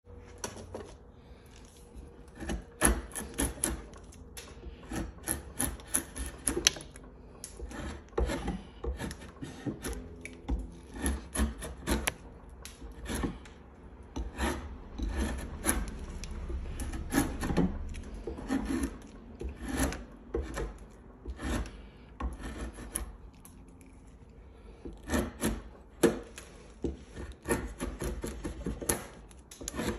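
Drawknife shaving a wooden tenon held in a vise: many short scraping cuts in quick runs with brief pauses, some strokes much louder than others, as the tenon is roughed to a taper.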